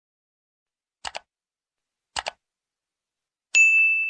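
Two quick double clicks about a second apart, then a single bright bell ding near the end that rings on and fades.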